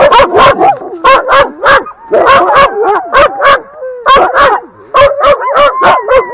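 A harnessed sled dog team barking loudly, several dogs at once in quick repeated barks, with high whines and yelps wavering up and down between the barks.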